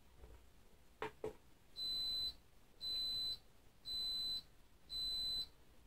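Anycubic wash-and-cure station beeping: four short high-pitched beeps about a second apart, after two quiet clicks. It is a warning that the owner traces to the cover not sitting properly on the machine.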